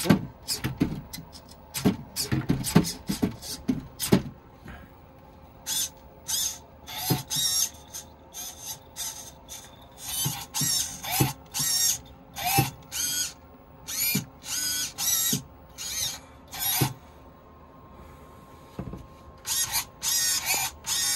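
RC lowrider's suspension servos working: a few clicks and knocks in the first seconds as the chassis jerks, then short high-pitched servo whirs, one after another in quick runs, that raise and drop the corners of the car. The whirs pause briefly near the end.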